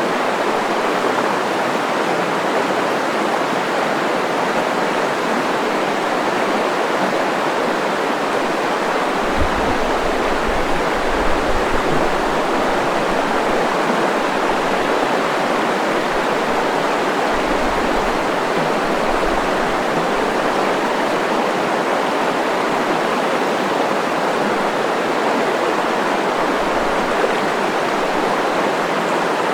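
Nizhnyaya Luvenga river running: a steady, loud rush of flowing water, with a few brief low rumbles around the middle.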